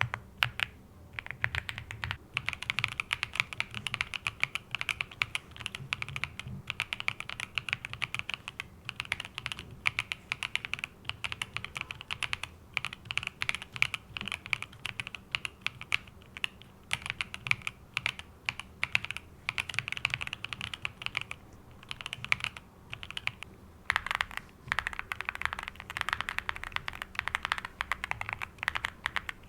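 Mechanical keyboard with Cupid switches being typed on at speed: a dense, continuous patter of key clicks with a few brief pauses, louder over the last few seconds.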